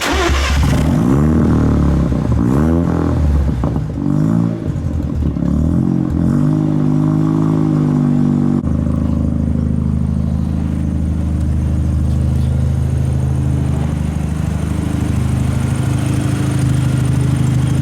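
Mazda FB RX-7's carbureted, naturally aspirated 12A two-rotor rotary engine, breathing through a cat-deleted exhaust with a small muffler, revved in several blips, then idling steadily from about halfway on.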